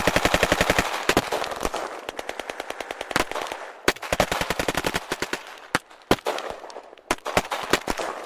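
Sound effect of automatic gunfire: a rapid burst of about ten shots a second, then scattered single shots and short bursts that thin out and fade toward the end.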